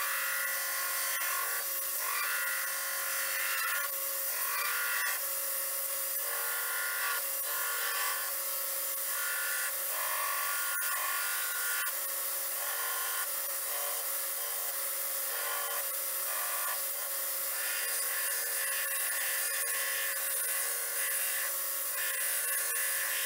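Belt grinder running steadily while a wooden knife handle of Osage orange is sanded on the belt, the motor's whine overlaid by a scraping rub that swells and fades as the wood is pressed on and eased off.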